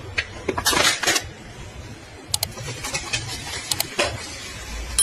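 A series of sharp clinks and knocks, like hard metal objects striking one another, with a couple of louder rushing bursts about a second in.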